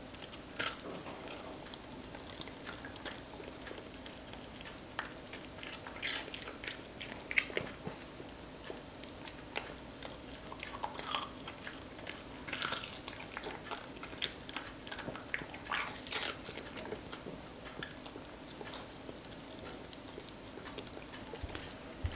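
A dog eating, chewing small pieces of food with irregular sharp bites, over a faint steady hum.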